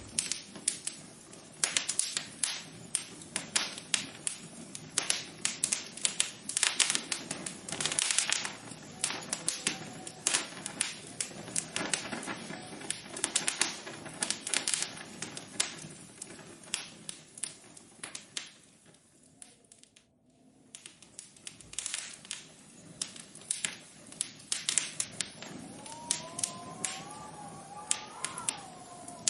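Rapid, irregular clicking and tapping that thins out briefly about two-thirds of the way in, with a faint wavering tone near the end.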